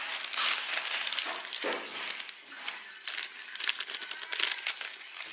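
Large clear plastic freezer bag crinkling and rustling in short, irregular bursts as it is cut open along its side with scissors and lifted.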